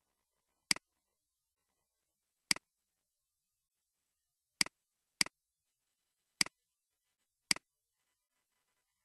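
Six sharp computer mouse clicks at irregular intervals, each a quick press and release, with near silence between them.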